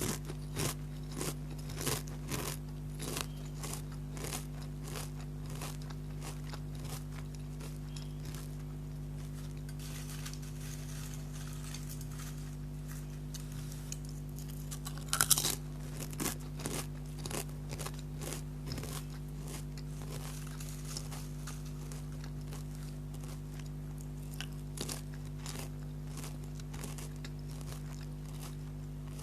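Lay's potato chips being bitten and chewed close to the microphone: crisp crunching that tapers off, with a loud bite about fifteen seconds in followed by a run of chewing crunches. A steady low hum runs underneath.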